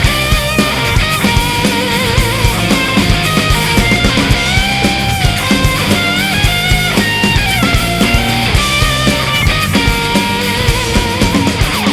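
Live rock band playing loud and hard: distorted electric guitars carrying a melodic lead line over bass and a driving drum beat, with no singing.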